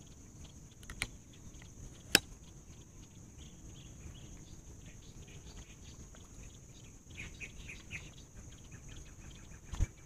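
Quiet outdoor ambience under a steady high hiss, broken by a few sharp clicks, the loudest about two seconds in, and faint rapid chirps later on.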